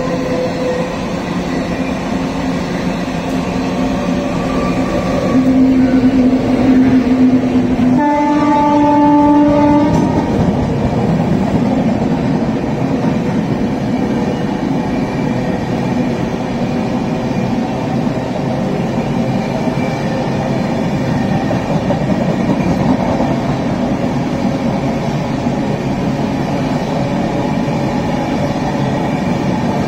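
Indian Railways electric locomotive's horn sounded in three blasts over the first ten seconds, the last on a higher, fuller chord. After that comes the steady rumble and wheel clatter of a Rajdhani Express's LHB coaches passing at speed.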